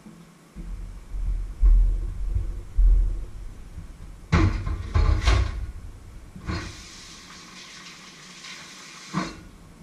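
Kitchenware being handled at a sink: deep bumps and a few sharp clinks. Then water runs from the tap for about three seconds and stops with a click near the end.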